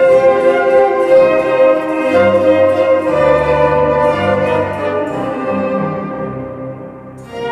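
Orchestra playing a waltz, with bowed strings prominent. The phrase dies away about six to seven seconds in, and the music swells again just before the end.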